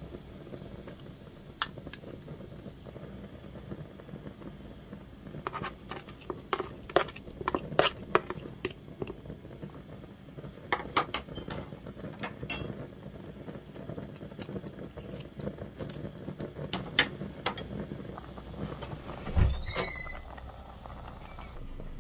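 A metal spoon clinking and scraping against a glass bowl and an enameled cast-iron pot in scattered clusters as clam meat is added to simmering noodle soup, over a low steady bubbling. Near the end comes a heavier thump with a brief squeak.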